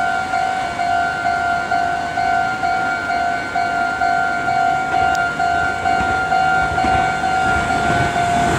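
Japanese railway level-crossing alarm ringing its electronic 'kan-kan' bell, an even two-tone ding about twice a second. An approaching train's rumble grows under it near the end.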